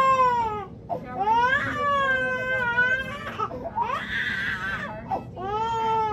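Nine-month-old baby girl crying in long, falling wails, about four in a row with short catches of breath between them.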